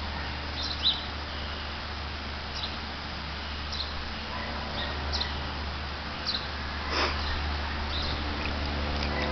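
Scattered short, high chirps of small birds over a low steady hum, with a brief splash about seven seconds in as a savannah cat paws at shallow water in a plastic kiddie pool.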